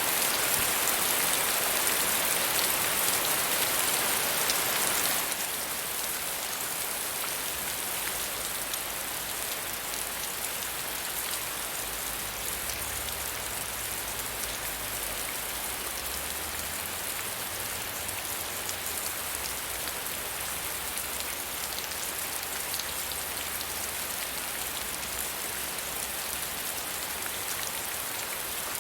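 Steady soft rain falling, with fine individual drops pattering. It becomes quieter about five seconds in, then holds even.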